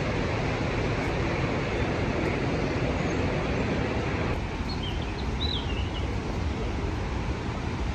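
Steady, loud rushing roar of the Rhine Falls waterfall, thinning a little about four seconds in. A few faint high chirps are heard about five seconds in.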